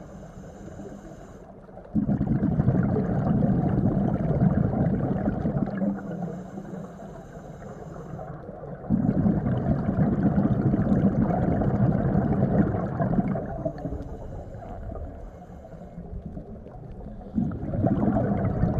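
Scuba diver breathing through a regulator underwater. Three long exhales of bubbles burble out, each lasting three to four seconds, with quieter inhales between them that carry a faint high hiss.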